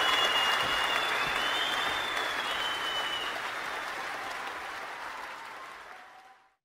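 Crowd applause with a few high tones over it in the first half, fading out gradually towards the end.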